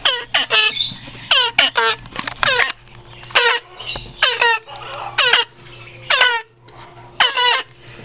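Baby parrot chicks giving repeated harsh begging calls, each call short and sliding steeply down in pitch, often coming in quick twos and threes.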